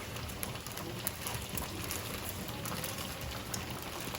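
A large pot of water boiling hard, a steady crackling bubble with many small irregular pops.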